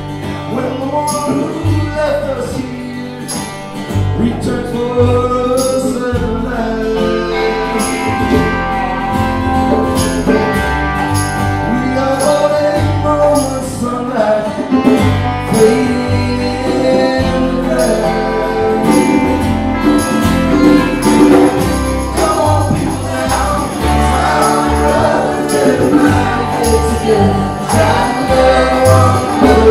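Live band playing a song: a man singing lead over guitar and a steady beat.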